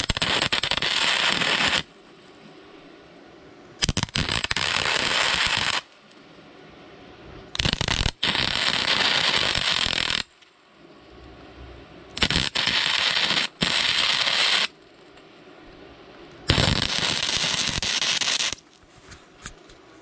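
Five short bursts of welding, each about two seconds long, starting and stopping sharply with pauses of about two seconds between them, as beads are laid on an ATV suspension part.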